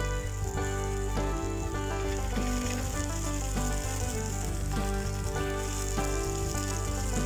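Food sizzling and frying in a cast-iron skillet, under background music of held notes that change about every half second.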